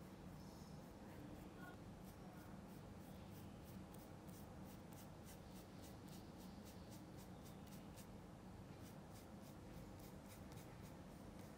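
Faint, quick paintbrush strokes working oil paint, about three or four a second, as the background layer is brushed and blended.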